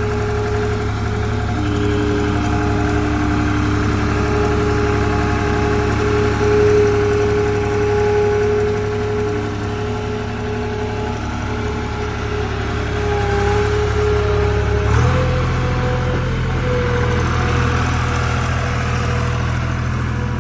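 John Deere 240 skid steer's diesel engine running steadily at idle. About three-quarters of the way through, its speed steps up slightly and then holds steady.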